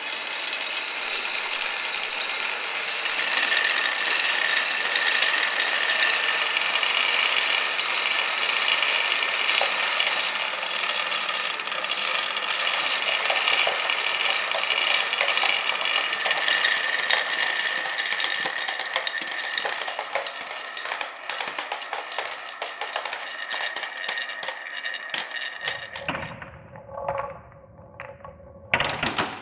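Many glass marbles rolling and clattering down a wooden marble run together in a dense, continuous rattle of clicks. It thins out to a few scattered separate clicks near the end.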